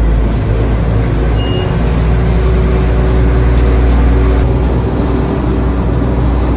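An engine running steadily: a loud, deep rumble with a steady hum above it.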